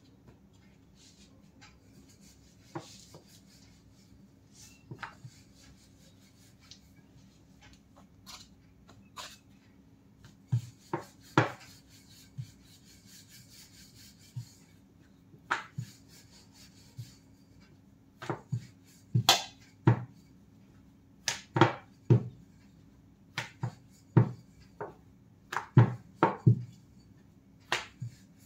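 Wooden rolling pin knocking and rolling on a round board as paratha dough is rolled out. The sharp, irregular clacks are sparse at first and come thick and loud through the second half, over a faint steady hum.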